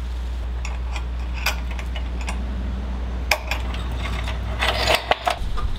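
Light metallic clicks and clinks of the mast's steel cable and its hardware being handled, a few separate clicks and then a short rattle near the end, over a steady low rumble.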